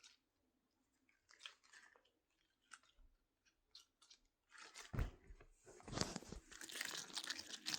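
A squishy toy squeezed and handled close to the microphone. A few faint clicks at first, then from a little past halfway a continuous irregular crunching and crackling as it is squeezed.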